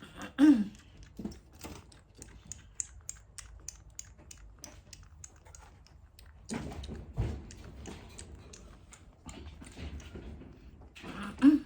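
A kitten mews twice with short falling calls, about half a second in and again near the end. In between come light scattered clicks and a brief rustle.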